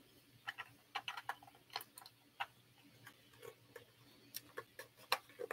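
Faint, irregular small plastic clicks and taps from a plastic Polly Pocket-style compact playset being fiddled with in the hands while its toy key is tried in the lock.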